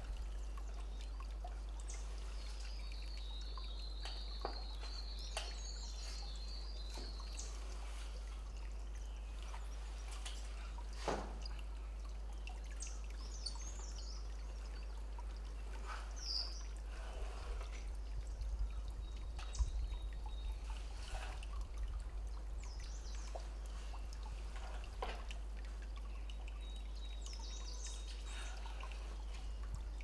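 Small mountain stream trickling and pouring over rocks, with a steady low rumble underneath. A high, wavering chirping call runs for a few seconds near the start, and a few short high chirps and light clicks come later.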